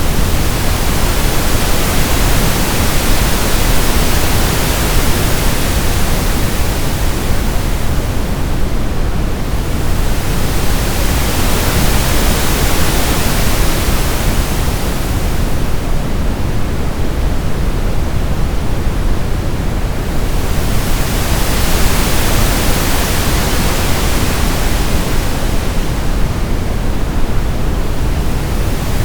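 Synthetic brown noise, a steady low rumble-like hiss, layered with pink noise whose level slowly swells and fades. The higher hiss drops away and comes back three times, roughly every eight to ten seconds.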